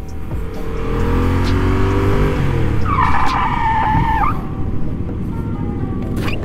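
Yamaha FZ-07's parallel-twin engine under way, rising in pitch as it pulls for about two seconds and then dropping as the throttle eases, over road and wind rush. About three seconds in comes a high squeal lasting just over a second, the loudest sound.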